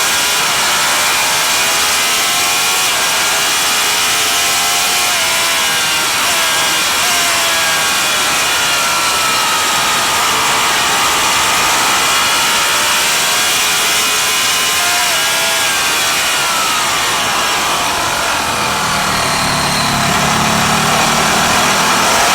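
Vintage racing motorcycle engine under race load, its pitch climbing and falling as it accelerates and slows for the corners, over heavy wind rush. The pitch drops around the middle, climbs again and falls once more near the end.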